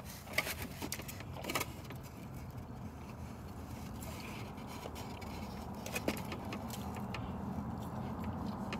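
Quiet, steady low hum inside a car cabin, with a few faint clicks and soft chewing sounds as someone eats.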